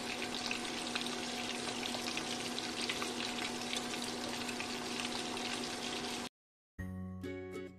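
Crumb-coated chicken pieces frying in hot vegetable oil in a pan: a dense, steady sizzle and crackle, with a faint steady hum beneath it. It cuts off after about six seconds, and music comes in near the end.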